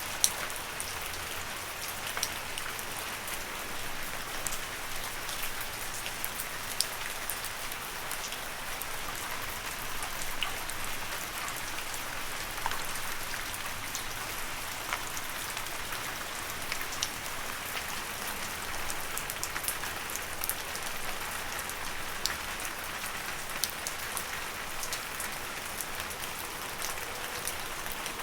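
Steady rain falling on leaves: an even hiss with many scattered sharp drips and drop ticks.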